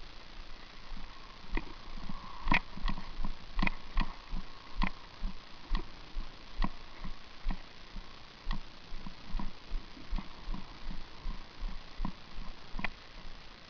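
A series of light, irregular clicks and soft knocks, about one or two a second.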